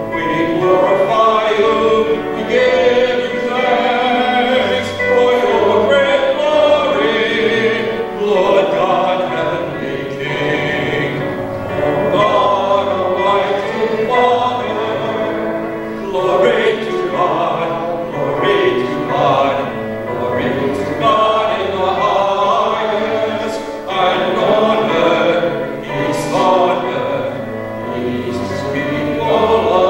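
Church singing: voices singing a liturgical hymn with instrumental accompaniment.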